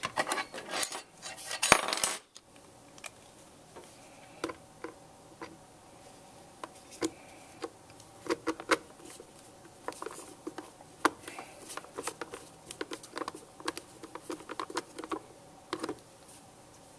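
Small metal screws clink and rattle for about two seconds as they are picked up. Then a small screwdriver drives them into the plastic back cover of the Turnigy 9X transmitter's wireless module, with scattered light clicks and ticks.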